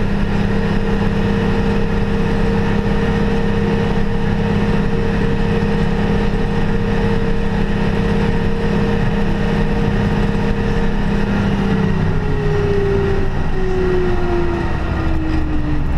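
New Holland TM165 tractor's diesel engine running steadily while pushing a front snow plough. From about twelve seconds in, its note falls steadily as the engine slows.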